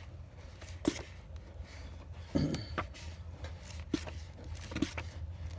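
Handling noise: a few scattered short knocks and scrapes over a low steady hum.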